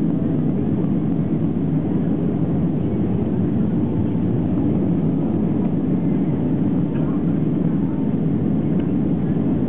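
Steady cabin noise inside an Airbus A321 airliner on approach: an even, low rush of engines and airflow.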